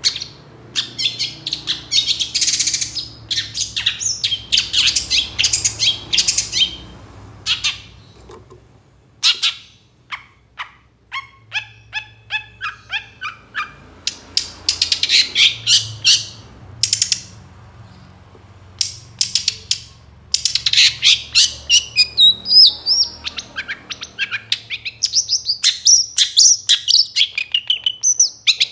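A moulting long-tailed shrike singing loudly: bursts of harsh, scratchy chattering, a run of rapid clipped ticking notes in the middle, and quick varied warbling phrases near the end.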